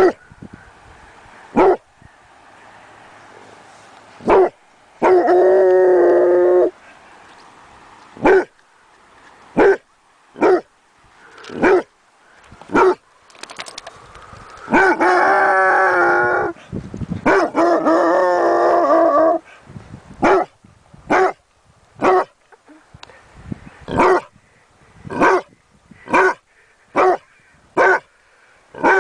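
A dog barking in single sharp barks, roughly one a second. Three longer, drawn-out, wavering howling cries come about five, fifteen and seventeen seconds in. Toward the end the barks come faster and more evenly spaced.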